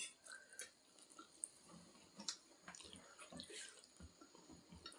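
Faint wet eating sounds of spicy ramen: noodles being slurped and chewed, with scattered small mouth smacks and clicks.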